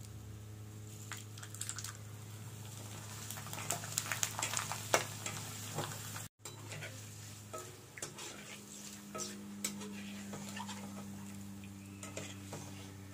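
Bread-mixture pieces sizzling in hot oil in an iron kadai, with a metal spoon clinking and scraping against the pan as they are stirred and broken apart. The clinks are loudest a few seconds in, and the sound cuts out briefly about halfway through.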